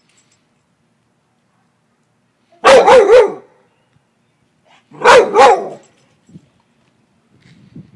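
Dog barking in two loud bursts about two and a half seconds apart, each a quick run of barks with wavering pitch.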